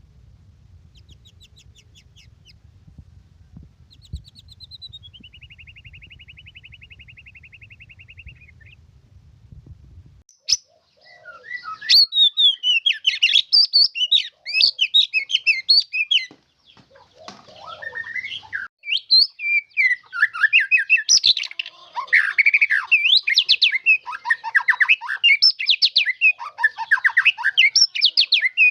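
White-rumped shama singing: a few sparse whistles and a falling trill at first, then from about ten seconds in a loud, fast, varied song of rapid whistles and trills with a couple of short pauses.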